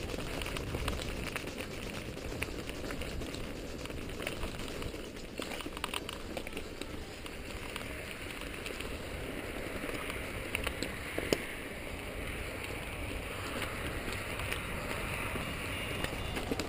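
Mountain bike rolling over loose gravel and stones, a steady crunching and rattling of tyres and frame, with a single sharp knock a little past the middle.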